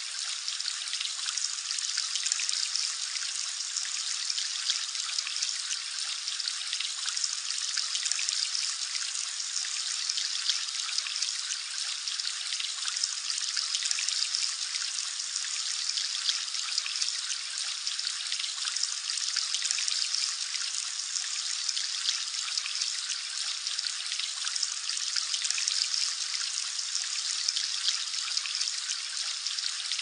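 Steady trickling, splashing water: an even hiss with a fine patter of small splashes in it.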